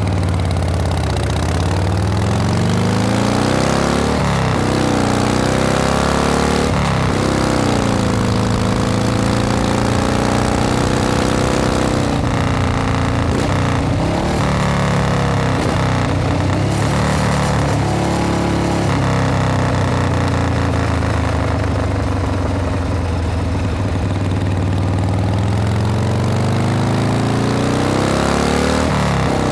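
Harley-Davidson Panhead V-twin motorcycle being ridden against the wind, its engine note rising and falling over and over as it speeds up and eases off, with wind rushing past. A few brief rough breaks in the sound come about midway.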